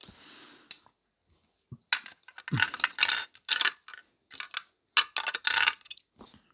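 Small hard plastic toy pieces clicking and clattering against each other in a run of short bursts, as they are handled.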